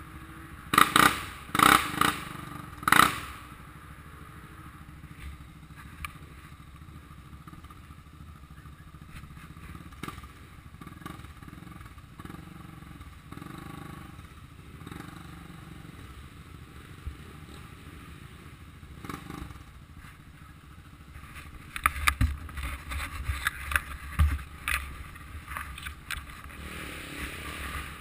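ATV engine idling steadily, with three short, loud bursts of noise in the first few seconds and a rougher, louder stretch near the end.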